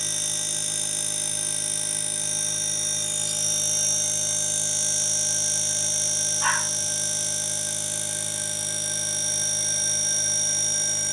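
Koppel 1 HP split inverter air conditioner running under test after its E1 indoor–outdoor communication fault was repaired: a steady hum with a constant high whine. A short sharp sound about six and a half seconds in.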